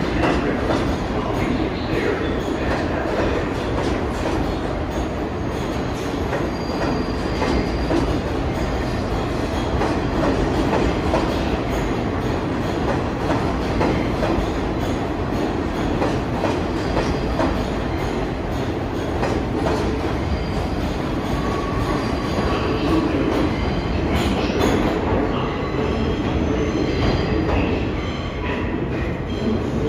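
New York City subway train running steadily on the track, with wheel-on-rail clatter and brief faint wheel squeals.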